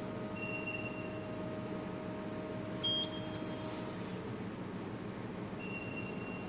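Short electronic beeps from a digital Rockwell hardness tester's control panel: one about half a second in, a brief sharper blip near three seconds, and another near the end. Under them is a steady hum that stops about four seconds in.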